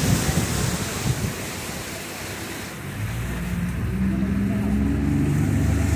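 Wind buffeting the microphone and water rushing past a moving boat. An outboard motor's steady low hum comes up about halfway through.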